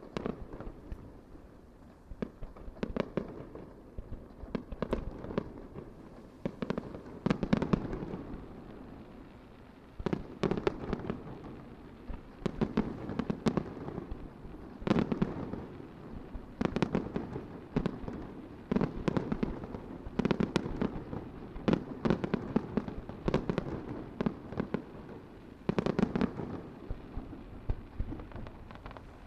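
Starmine fireworks barrage: aerial shells bursting in clusters of sharp bangs about every two seconds, each trailing off into crackling and a low rumbling echo.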